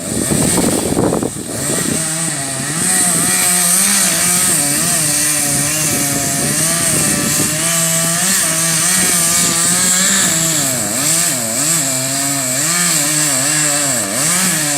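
Gas chainsaw cutting through the trunk of a dead pine, running at high revs with its pitch repeatedly dipping and recovering as the chain loads in the wood. It is the felling cut, just before the tree goes over.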